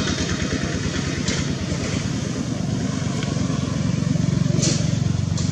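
Motorbike engine idling steadily with an even low pulsing rumble, with a few short clicks over it.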